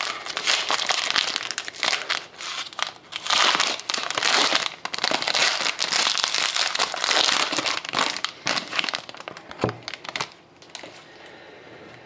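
Wrapping on a sealed box of 2011-12 Panini Prime hockey trading cards being torn open and crumpled: continuous crinkling that dies away about ten and a half seconds in.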